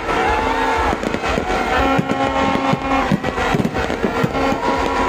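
Fireworks display going off in an irregular string of sharp bangs over a continuous low rumble, with held steady tones and crowd noise underneath.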